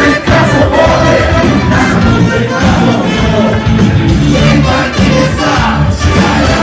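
A live band with a brass section (trombone, tuba and trumpet) playing loudly, with crowd noise underneath.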